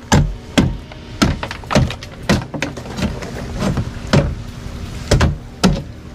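Machete chopping into a hollow plastic float, a dozen or so hard blows at about two a second, hacking it open.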